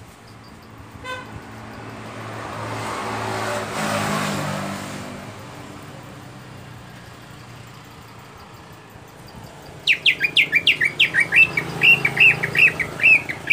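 A passing motor vehicle swells and fades in the first half, after a short toot about a second in. About ten seconds in, a caged greater green leafbird (cucak ijo) starts a rapid run of sharp, repeated chirping notes.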